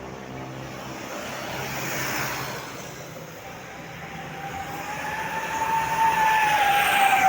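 A vehicle passing, then a bus horn sounding one long note from about halfway in, growing louder and sliding slightly up and then down in pitch.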